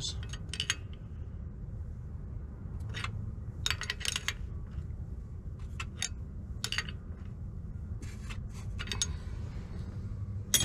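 Metal hand tools clinking: a socket and combination wrench being fitted and shifted on an engine sensor, giving scattered sharp clicks and small clusters of clinks over a steady low rumble.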